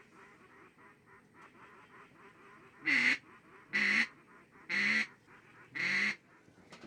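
Four loud duck quacks about a second apart, over faint steady chattering of ducks.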